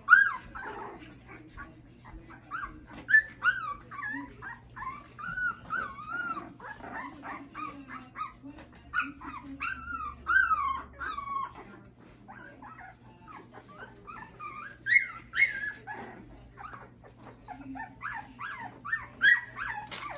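A litter of Schapendoes puppies whimpering and squealing: a steady stream of short, high-pitched whines that bend up and down, several overlapping, with a few louder yelps.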